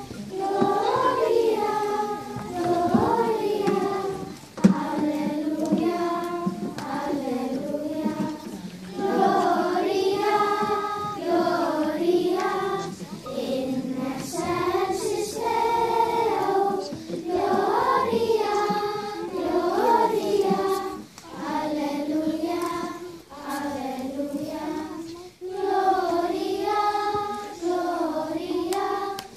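Children's choir singing, phrase after phrase with short breaks between lines.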